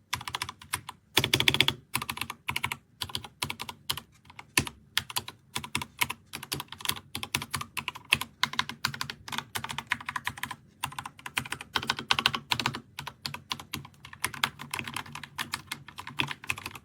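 Typing on an RK Royal Kludge RK61 60% mechanical keyboard: a rapid, uneven stream of key clacks with a few brief pauses.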